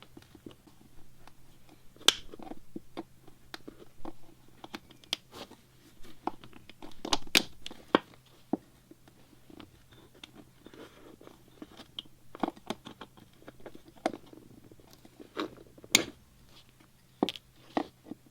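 Hand upholstery tools at work in teardown, prying out staples and pulling away old fabric: irregular sharp snaps and clicks with crunching and tearing in between, a few snaps much louder than the rest.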